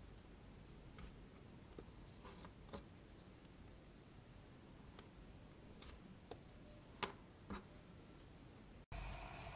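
Near silence with a few faint, scattered clicks and taps as small pieces of toilet-roll cardboard and a pointed metal tool are handled on a cutting mat.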